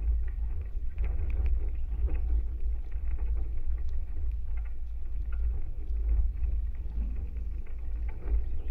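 Vibration of a tall wooden maypole and its taut stay wires, picked up through contact microphones on the structure: a steady deep rumble with scattered small ticks.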